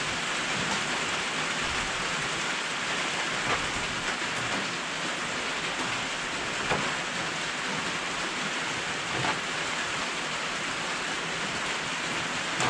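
Steady rain hissing on a metal carport roof, with a few faint soft knocks from handling.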